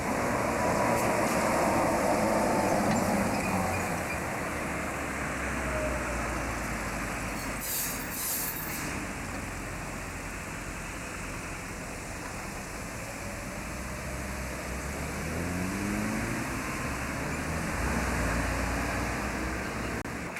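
Street traffic: an articulated trolleybus passes close by, loudest in the first few seconds, with a faint tone that drops slightly in pitch as it goes. A brief hiss comes about eight seconds in, and later a vehicle speeds up with a rising note about fifteen seconds in.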